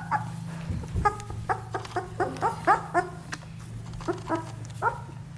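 Newborn German shepherd puppies squeaking and whining in a rapid run of short high-pitched cries, pausing briefly past the middle, over a steady low hum.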